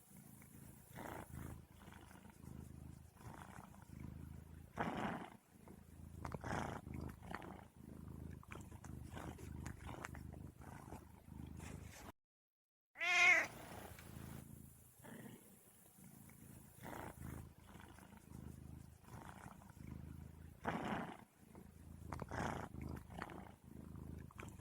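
Domestic cat purring steadily, with short meows every second or two. A louder wavering meow follows a brief total dropout about halfway through.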